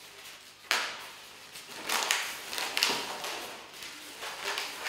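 Inflated latex modelling balloon (260 size) being bent and twisted in the hands, its latex rubbing against the fingers and itself in several short bursts, the first beginning suddenly about half a second in.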